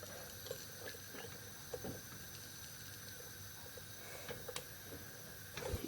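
Faint steady hiss of a lit gas stove burner under a stovetop Bialetti Mukka Express as it begins heating, with a few faint light clicks.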